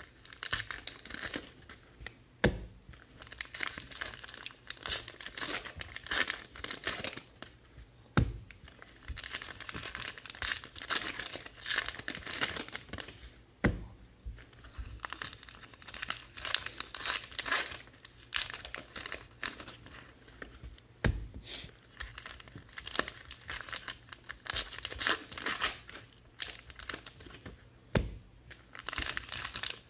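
Topps Allen & Ginter trading card pack wrappers being torn open and crinkled by hand, in repeated spells of crackling. A few sharp knocks stand out, about five in all.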